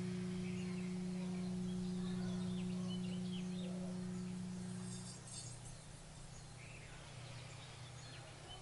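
A singing bowl's steady ringing tone, held with one overtone above it, fades and stops about five seconds in. Faint bird chirps sound in the background.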